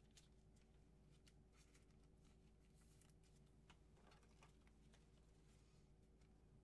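Near silence: room tone with a steady low hum and a few faint scattered ticks and rustles.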